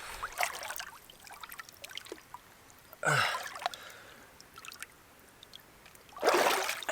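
Water trickling and splashing lightly as a swimmer moves in cold lake water. Two loud, breathy gasps come about three and six seconds in.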